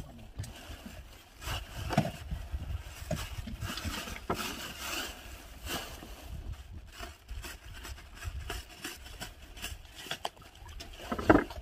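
Low wind rumble and sea sounds around a small fibreglass fishing boat, with scattered knocks and rustles of gear being handled in the hull, and a louder thump near the end.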